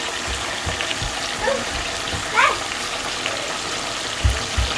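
Hot oil sizzling and bubbling steadily as stuffed bell peppers and bitter melon deep-fry in a pot. A short rising squeak about halfway through, and a few soft low knocks near the end.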